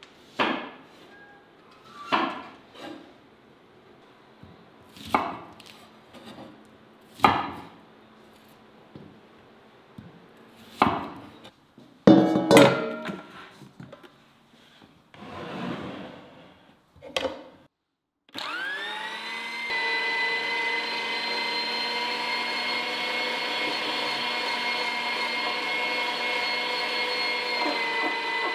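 Separate knocks and clatters every second or two. Then, about two-thirds of the way in, an electric meat grinder's motor starts, rising quickly in pitch and settling into a steady whine as meat is pushed through it.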